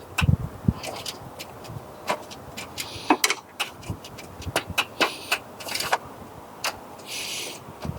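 Irregular light clicks and metallic knocks of hands working on a motorcycle, with a short hiss about seven seconds in.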